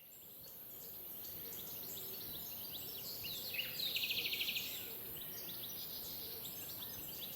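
Several wild birds chirping, with a rapid trill of about a second near the middle, over a steady high hiss.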